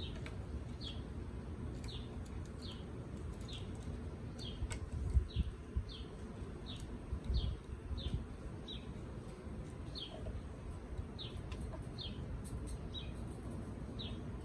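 A bird chirping over and over, short falling notes about once every two-thirds of a second, over a low rumble with a few sharp clicks and a couple of louder bumps in the middle.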